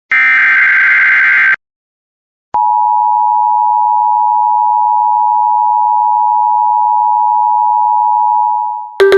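The last of the Emergency Alert System's buzzy SAME digital data bursts, a second of silence, then the EAS two-tone attention signal: two steady tones near 853 and 960 Hz sounding together for about six seconds and fading near the end. This signals that a new warning message is about to be read. A sharp click and a brief different tone follow right at the end.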